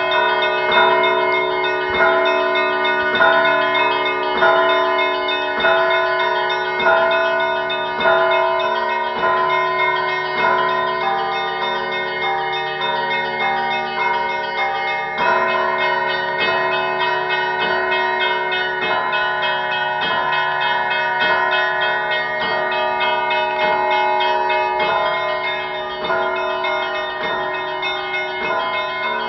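Russian Orthodox church bells ringing, calling to the evening service: smaller bells struck in a steady repeating pattern over the long hum of a larger bell.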